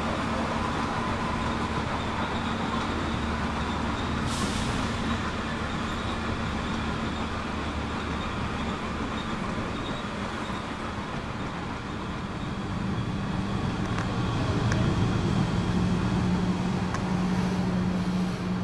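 Steady running noise of a moving public-transport vehicle heard from inside the cabin, with a short hiss about four seconds in. A steady low hum grows louder over the last few seconds.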